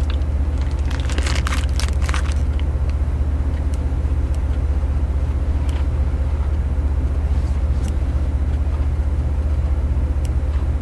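Steady low motor hum, like an idling engine or generator, at an even level throughout, with a few short crackles in the first two seconds.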